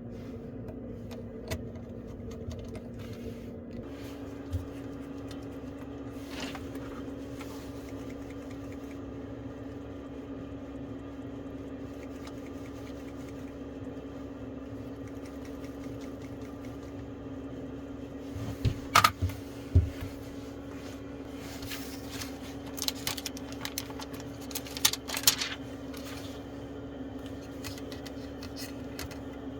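Steady mechanical hum that shifts slightly higher in pitch about four seconds in, with a cluster of small clicks and taps about two-thirds of the way through.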